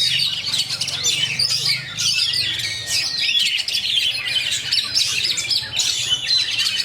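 Oriental magpie-robin (kacer) singing a fast, dense, unbroken run of rising and falling whistles and chirps.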